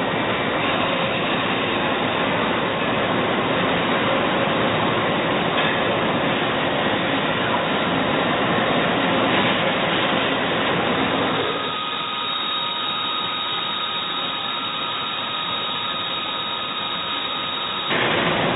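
Doosan Puma ST20G CNC lathe running, with a loud, steady rushing noise. About two-thirds of the way through the rushing eases off for several seconds, leaving thin steady whines, then comes back just before the end.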